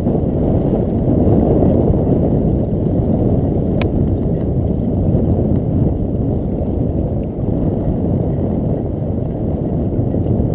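Strong wind buffeting the microphone of a GoPro Hero 2 in an open skeleton housing on a moving bicycle: a steady, loud low rush, with one short click about four seconds in.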